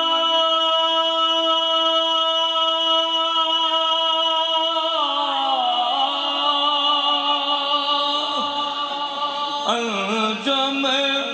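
A man singing a naat (Urdu devotional song in praise of the Prophet). He holds one long, steady note for about five seconds, slides down in pitch and holds again, then breaks into a quick wavering run near the end.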